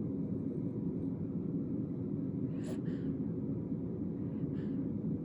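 A person hiccuping: a sharp hiccup about halfway through, a weaker one right after it, and another a little before the end, over a steady low rumble.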